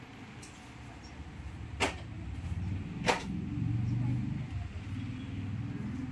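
Two sharp clicks about a second and a half apart over a steady low rumble.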